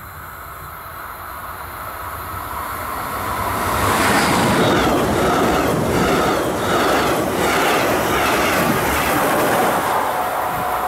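Double-deck regional push-pull train with a class 112 electric locomotive pushing at the rear, approaching and passing at speed. It swells to a rush that peaks about four seconds in, with the wheels clattering over the rails in a steady rhythm. A steady whine comes in near the end as the locomotive goes by.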